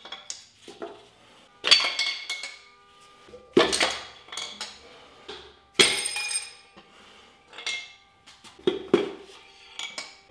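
Sharp metallic clanks and clinks with a ringing tail as piston and connecting-rod assemblies are tapped out of a Chevy 350 small-block with a mallet handle and clatter against the block. Four loud strikes come about two seconds apart, with lighter knocks between them.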